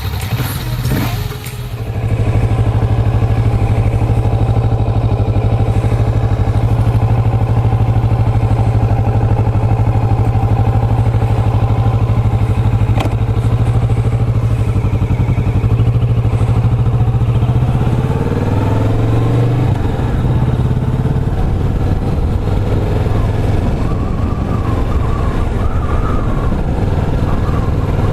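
Kawasaki Vulcan S's 649 cc parallel-twin engine running steadily under way. Its pitch shifts and climbs about two-thirds of the way through, as with a change of speed or gear.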